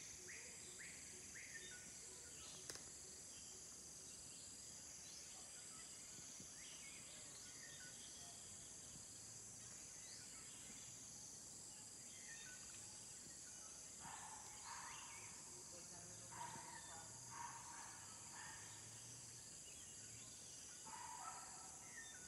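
Faint, steady high-pitched insect chorus with a slow wavering rise and fall. A few short chirps come near the start, and faint indistinct calls come in the second half.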